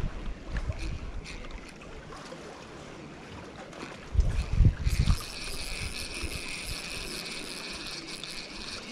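Wind buffeting the microphone, with a few heavy gusts about four seconds in. After that a steady high hiss sets in and holds.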